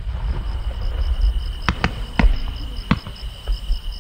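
Aerial firework shells going off: four sharp reports between about halfway and three-quarters of the way through, over a low rolling rumble. A steady insect trill runs behind them.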